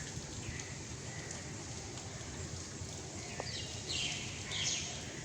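Outdoor ambience: a steady hiss with faint short bird chirps, then a few louder, harsh bird calls in the last two seconds.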